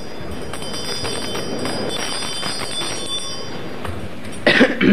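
Light clinks of cutlery on glassware with the glass ringing on, over the murmur of a dining hall. Near the end there is a short, louder sound of a man's voice.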